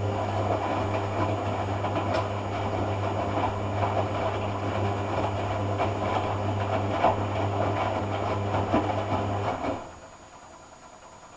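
Hoover AC166 Classica 1200 washing machine running on its cotton rinse: a steady motor hum under a busy sloshing, clicking clatter that stops suddenly about ten seconds in.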